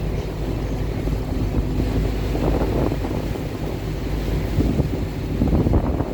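Small motorboat running on choppy sea, its engine a steady low drone under wind buffeting the microphone. The sound of water swells louder twice, about two and a half seconds in and again near the end.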